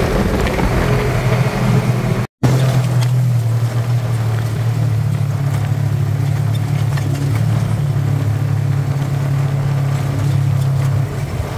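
Side-by-side UTV's engine running as it drives along a dirt track, a steady low drone. The sound drops out briefly about two seconds in, then the drone carries on.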